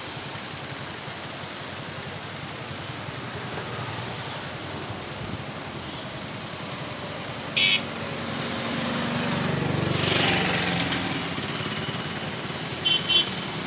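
Steady rushing noise of a flooded river's fast, muddy current heard from a bridge. Low sounds swell about eight to eleven seconds in, and there are two short high-pitched sounds, one near the middle and one near the end.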